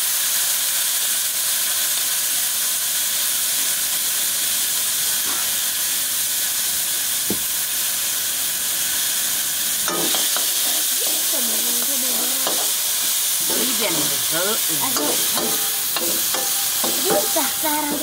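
Dry meat sizzling in a wok with a steady hiss, stirred and turned with a metal ladle, with a couple of sharp clinks of the ladle against the pan.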